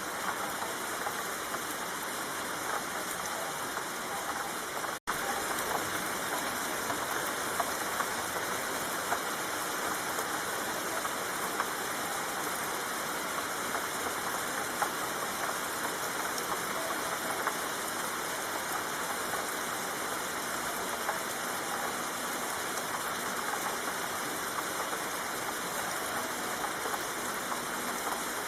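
Steady rain falling, a dense even patter with scattered louder drops. It cuts out for an instant about five seconds in, then carries on unchanged.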